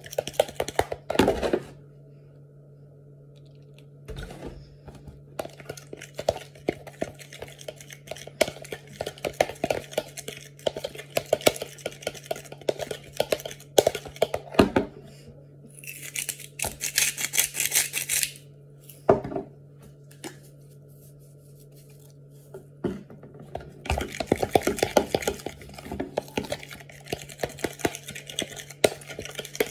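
Fork beating batter in a plastic tub: fast runs of metal-on-plastic clicks and taps, stopping twice for a few seconds.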